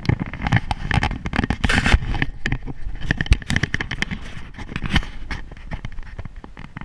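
Close, irregular rustling and scraping with many sharp crackles: a camera being handled against hammock fabric while the person in the hammock shifts about.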